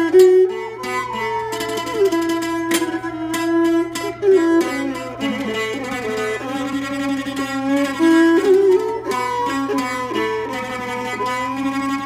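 Jakhe, the Thai three-string floor zither, played solo as a sound check: a continuous melody of plucked notes, several of them held with the pitch sliding up and down.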